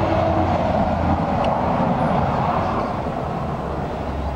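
A steady engine rumble, a low hum under a broad noise, easing off slightly in the second half.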